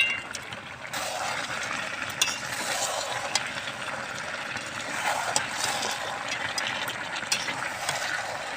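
Spatula stirring and scraping a thick, frying mixture of bhetki fish bones, potato and spices in a pan, with a steady sizzle. Scattered clicks come from the spatula knocking the pan, with a sharp knock as it begins.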